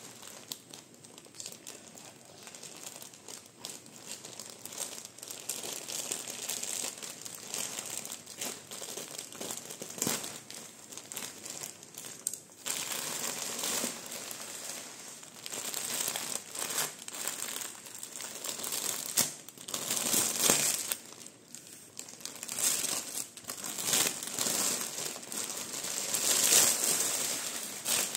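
Plastic courier mailer and clear polythene bag crinkling and rustling as a parcel is opened and the plastic wrapping handled, in irregular spells, loudest in the last few seconds.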